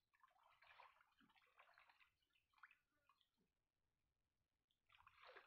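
Faint sloshing and splashing of river water around a person wading and ducking under. It dies down in the middle and picks up again near the end.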